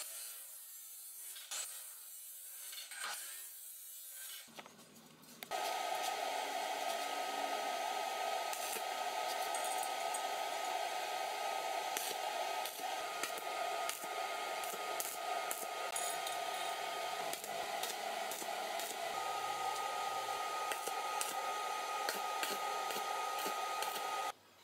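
A Ronix abrasive chop saw grinds through steel pipe for about four seconds. After a short break, a stick-welding arc on steel pipe runs as a steady hiss with frequent sharp crackling clicks and a thin steady whine, cutting off abruptly just before the end.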